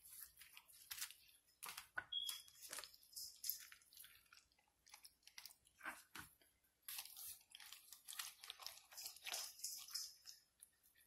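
Faint, irregular wet squishing and crackling of a hand rubbing a thick mayonnaise-and-mustard coating over and inside a raw turkey breast in a stainless steel pot.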